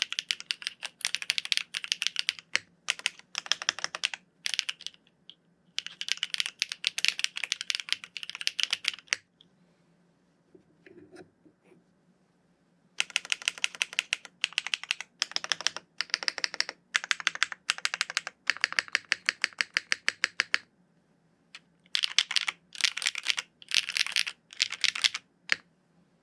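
Fast typing on a Constance TKL mechanical keyboard fitted with Keygeek PA linear switches, a polypropylene plate and GMK ABS keycaps: quick streams of keystrokes bottoming out. The keystrokes come in bursts, with a pause of about four seconds after the first third and a shorter pause near the end. The bottom-out is mild but with a noticeable echo in the case.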